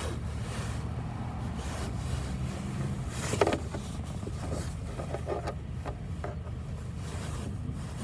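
City bus on the move, heard from inside the cabin: a steady low engine and road rumble with scattered rattles and knocks, one louder knock about three and a half seconds in.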